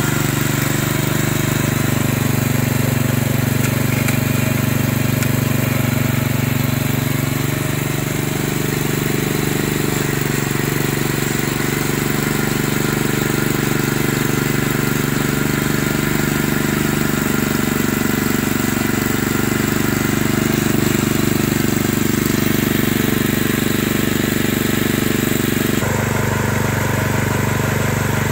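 Honda FF500 tiller's single-cylinder four-stroke engine running steadily on its first test run after preparation. About two seconds before the end the sound changes abruptly and slightly in tone.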